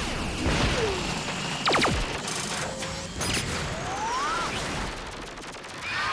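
Cartoon battle sound effects: a volley of missiles launching and whooshing, over mechanical clanking. Steep falling whistles come about two seconds in, and a rising whistle around four seconds.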